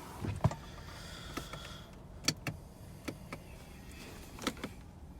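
Scattered clicks and light knocks from the controls inside the cabin of a 2019 Subaru Ascent that will not start, about seven in all, over a steady low hum.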